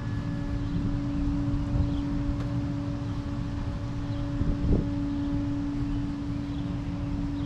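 A steady low mechanical hum holding one pitch, over wind rumbling on the microphone, with a brief louder swell a little past the middle.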